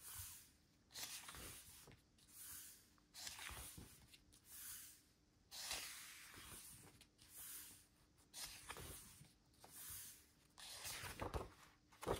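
Faint paper swishes and rustles of a glossy photobook's pages being turned and smoothed flat by hand, roughly one a second.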